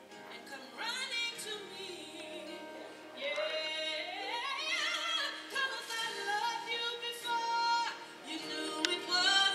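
A woman singing a slow solo, with long held notes that waver in pitch and short breaks between phrases.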